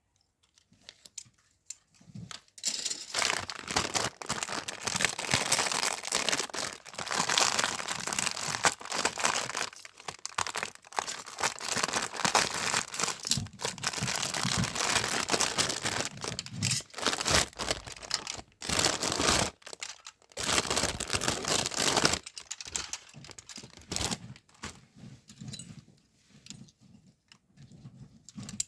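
Parcel packaging being crinkled, crumpled and torn open by hand, in irregular rustling spells from a couple of seconds in until near the end, with short pauses between.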